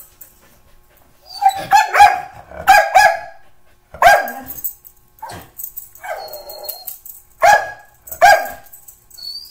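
Norwegian Elkhound barking: a run of sharp, loud barks beginning about a second and a half in. Some come in quick pairs, and there is a lower, rougher bark in the middle.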